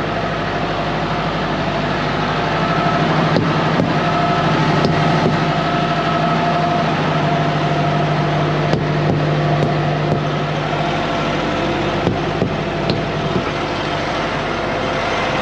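Idling semi-truck diesel engines: a steady hum with a low drone that fades out about ten seconds in, and a few scattered light clicks.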